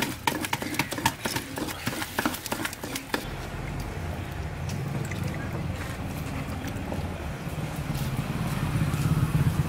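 Rapid clicking and scraping of a spoon beating thick boiled sugar syrup in a pot, with voices behind it. After about three seconds this gives way to a steady low rumble.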